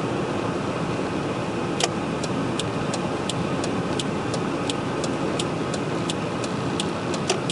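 Turn-signal flasher clicking steadily, about three clicks a second, starting about two seconds in, over the steady engine and road noise inside an old pickup truck's cab.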